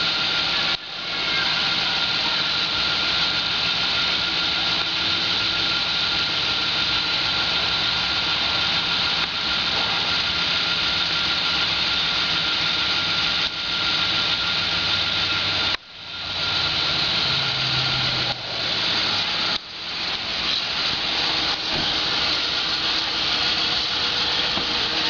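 Ford Crown Victoria Police Interceptor's 4.6-litre V8 idling, heard as a steady, even rushing noise with a faint steady tone. The sound dips sharply three times and swells back each time.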